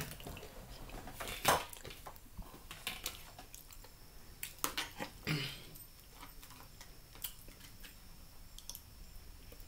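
Plate and fork clinks and knocks during a meal. A few sharp clicks come in the first half, then fainter small ticks.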